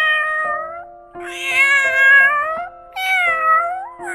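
Domestic cat meowing repeatedly in long, drawn-out meows: one trails off near the start, then two more of about a second each follow. Steady background music plays underneath.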